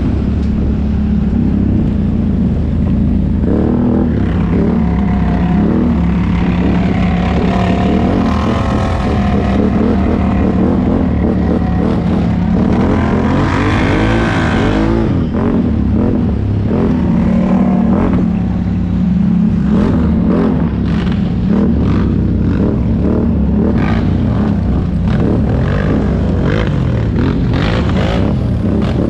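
ATV engine running under load, revving up and easing off again and again with the throttle. From about two-thirds of the way through, a run of sharp knocks and rattles joins the engine.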